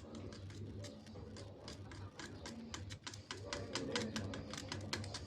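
Homemade arc welder built from fluorescent-lamp and sodium-lamp ballasts, with the arc crackling in rapid, irregular clicks over a steady low transformer hum.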